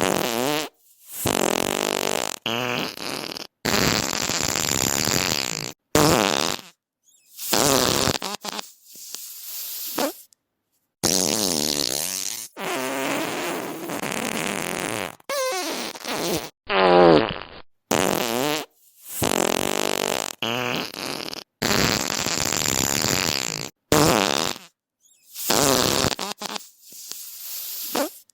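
A rapid string of more than a dozen separate farts, each lasting from half a second to about two seconds, many with a buzzing, wavering pitch. They are cut one after another with brief dead silences between them.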